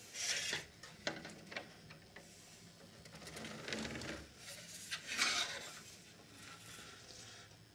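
Handling noises from a small portable TV and its stand being fitted together on a table: short scrapes and rubs, the loudest about five seconds in, with a couple of sharp clicks about a second in.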